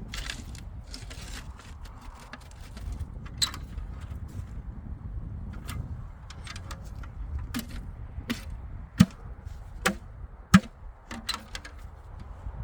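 Irregular sharp wooden knocks and clacks from firewood being worked, the two loudest about nine and ten and a half seconds in, over a steady low rumble.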